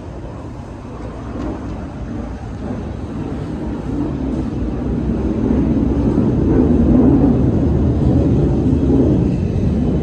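Aircraft passing overhead, heard from inside a large store: a low, steady rumble that swells over several seconds and stays loud.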